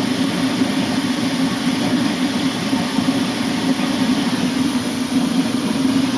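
Furnace running with its burner flame lit and staying lit: a steady, unbroken rumble with a hiss over it.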